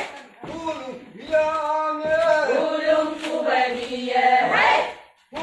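A group of voices, mostly women, chanting a Donyi-Polo ritual chant in unison to drive evil spirits from the home. After a quieter first second they hold long, drawn-out notes together, and a loud rising cry comes near the end.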